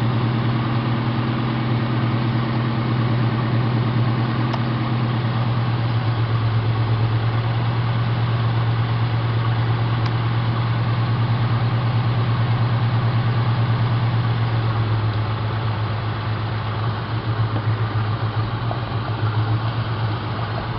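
Ford Mustang's 4.6-litre V8 idling steadily, the running becoming uneven after about sixteen seconds. The engine is on a failing fuel supply: the two-speed fuel pump's low-speed dropping resistor is open, so the pump quits and fuel pressure falls off.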